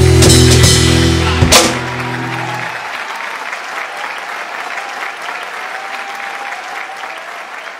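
A live rock band holds its final chord and closes it with a last sharp drum hit about one and a half seconds in. The band stops, and the audience applauds, fading away.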